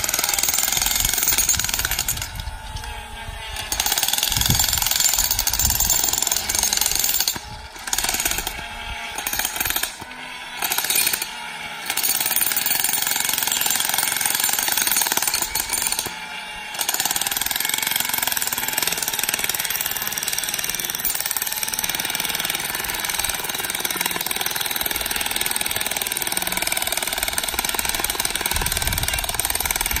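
Handheld jackhammer breaking up rocky ground, running in long steady runs. It stops briefly several times in the first half and runs without a break after about seventeen seconds.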